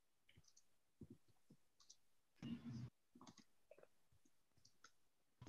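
Near silence with faint scattered clicks, and a brief low sound about halfway through.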